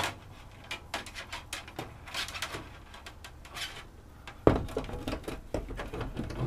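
Plastic interior trim frame of a roof vent fan being handled and pressed up against the van's ceiling panel: light clicks and rustling, then one louder knock about four and a half seconds in, followed by small knocks and rubbing as it is fitted around the fan.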